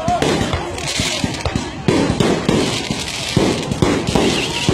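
Firecrackers going off in a string of sharp, irregularly spaced bangs, with crowd voices underneath.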